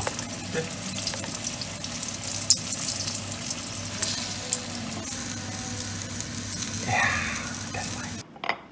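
Cornstarch-dusted carp roe deep-frying in hot oil in a wok: a steady crackling sizzle full of little pops. It cuts off suddenly near the end, followed by a few light clicks.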